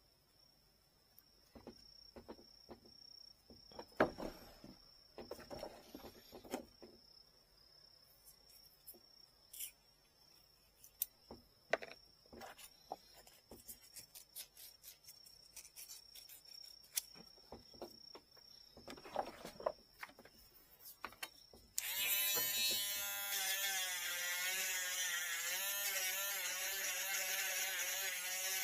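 Light clicks and taps of small parts and tools being handled over a faint, steady high whine. About 22 seconds in, a small electric power-tool motor starts and runs steadily.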